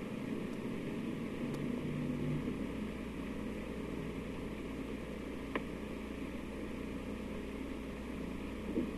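Steady hiss and low hum of an old 1950s recording's noise floor, with one sharp click about halfway through and a soft bump near the end.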